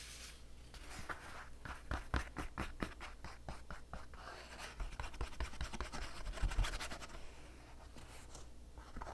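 Paintbrush scratching across paper as white acrylic paint is brushed on, in a run of short, quick strokes, then softer, less regular brushing.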